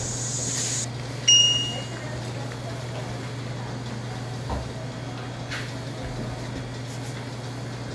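Background room noise with a steady low hum. About a second in, a single short, bright ding rings out and fades within half a second.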